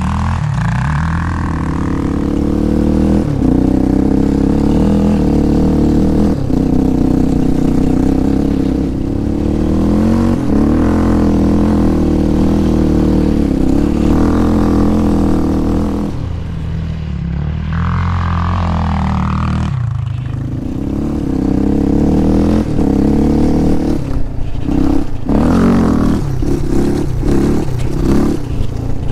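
Yamaha Raptor 700 ATV's single-cylinder four-stroke engine running hard under throttle. It eases off for a few seconds about two-thirds of the way through, picks up again, and ends in a run of quick on-off throttle blips.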